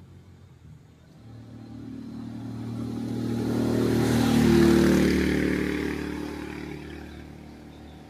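A motor vehicle driving past unseen: its engine sound swells from about a second in, is loudest around the middle, then fades away, its note dipping slightly as it goes by.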